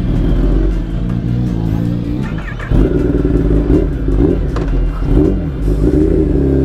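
Kawasaki ZX-10R's inline-four engine running at low speed with light throttle, its note wavering up and down and getting louder about three seconds in.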